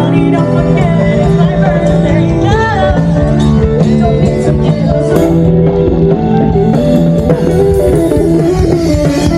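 Live band music: a voice singing over guitar and a steady bass line.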